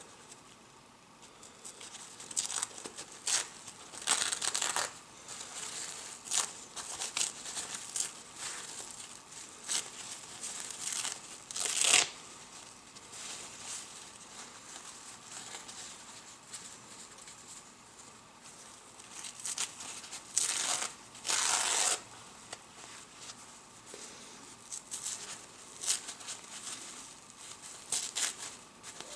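A kitchen paper towel being torn by hand in irregular rips of varied length, with crumpling of the torn pieces. A few longer, louder tears come around the middle and about two-thirds of the way through.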